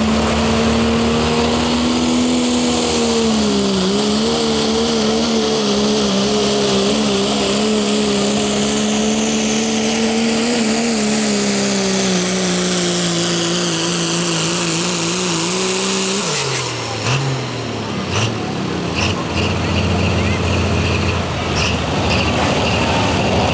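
Turbocharged diesel pickup engine at full throttle pulling a sled: a loud, steady high drone that dips briefly about four seconds in and wavers through the run. About sixteen seconds in the pitch falls away as the throttle comes off at the end of the pull. The engine keeps running lower, with a few sharp knocks near the end.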